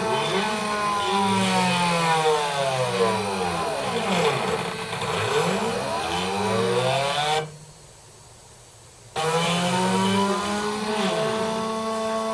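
Stepper motors of a homemade CNC engraving machine whining, the pitch repeatedly sliding down and back up as the axes slow and speed up along the tool path. The motor sound stops for about a second and a half past the middle, then starts again.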